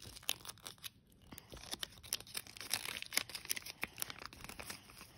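Folded paper instruction leaflet from a Kinder Joy toy crackling and rustling as it is unfolded by hand: a run of small crisp crackles, busiest in the middle.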